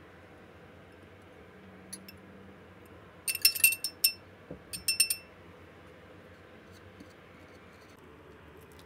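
Glass bowls clinking: a quick run of bright ringing clinks about three seconds in, and a second, shorter run about a second later.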